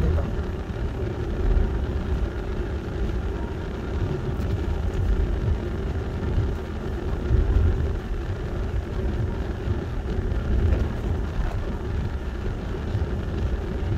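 A vehicle running steadily: a constant low rumble with a steady hum above it.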